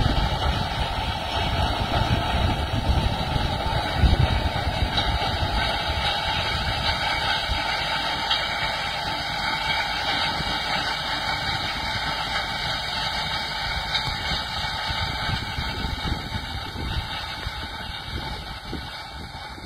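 Tractor engine running steadily under load as it pulls a wide Quivogne Rollmax land roller over stubble, a continuous mechanical rumble. It grows gradually quieter over the last few seconds as the tractor moves away.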